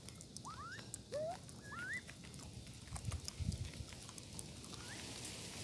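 Dusky-legged guans pecking corn kernels from the grass: many sharp beak clicks, with a few dull low thumps about three seconds in. Several short, rising whistled calls come in the first two seconds.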